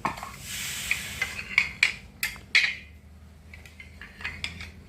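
Packaging being handled and opened: a short rustle, then a run of sharp crackles and clicks, loudest about two seconds in, with fainter clicks near the end.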